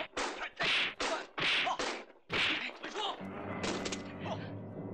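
A quick run of staff-fight sound effects: short, sharp whooshes and whacks, about two or three a second. About three seconds in, film score music comes in, with a couple more hits over it.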